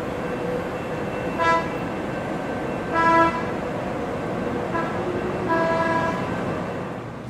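San Diego Trolley light-rail train rolling past with a steady rumble, sounding its horn in several toots, some short and some longer.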